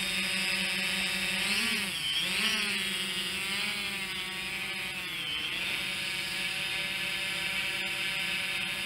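FIMI X8 2020 quadcopter's propellers buzzing as it hovers overhead, a steady drone whose pitch dips and rises about two seconds in and again around five seconds, as the motors adjust.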